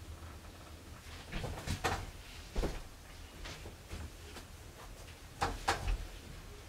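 Soft clicks and knocks of a door being opened as someone comes into a quiet room, in three small clusters, the loudest about two and a half seconds in and near five and a half seconds.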